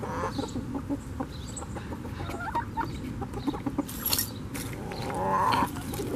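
A flock of domestic chickens clucking and calling, with short scattered calls and a louder call about five seconds in.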